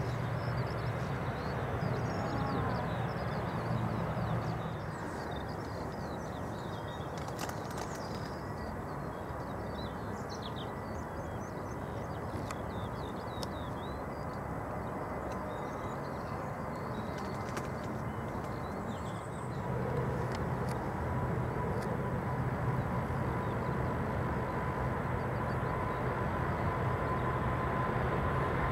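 Airbus A380's jet engines running at taxi thrust: a steady rumble with a thin high whine. The noise grows louder about two-thirds of the way through, and the whine becomes clearer near the end.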